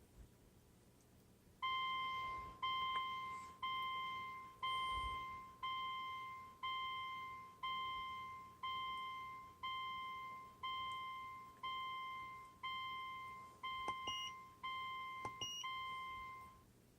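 An electronic chime dinging about once a second, fifteen times, each ding fading before the next. Near the end come two sharp clicks, each with a short higher beep, like buttons being pressed.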